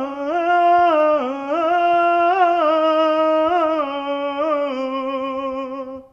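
A man singing a slow, ornamented melody alone, without accompaniment, holding long notes with quick turns between them. The melody drifts gradually lower and stops suddenly near the end.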